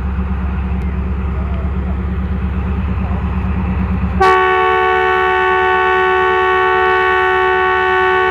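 ZCU-30 diesel-electric locomotive's engine running with a low, steady note; about four seconds in, its air horn sounds one long, steady blast of several notes together, the departure signal.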